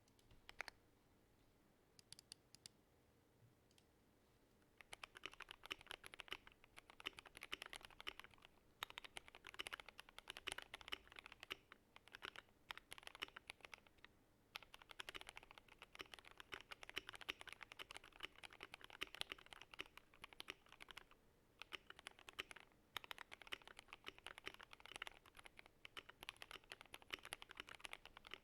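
GMMK Pro mechanical keyboard with lubed and filmed Gateron Black Ink V2 linear switches on a polycarbonate plate being typed on. A few single keystrokes at first, then fast continuous typing from about five seconds in, with short breaks.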